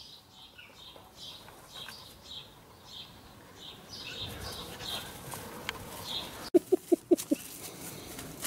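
Cocker spaniel puppy giving five quick, high yips in a row near the end, over a small bird chirping about twice a second.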